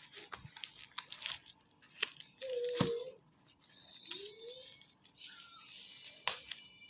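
Packaging rustling and crinkling, with scattered small clicks and taps and a couple of short squeaks as the unboxed items and their wrapping are handled.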